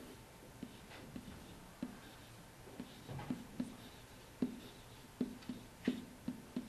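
A pen or stylus writing letters by hand on a hard surface: about a dozen short, irregularly spaced taps and scratches as the strokes go down.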